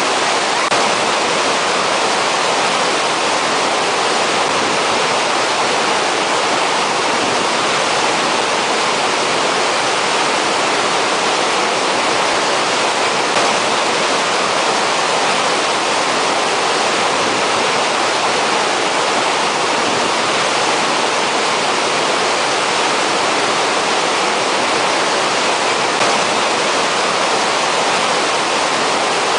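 Waterfall cascading over boulders into a churning pool: a loud, steady rush of white water.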